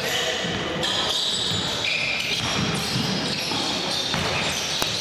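Live basketball game sound in a sports hall: the ball bouncing on the hardwood floor amid shuffling players, with one sharp knock near the end.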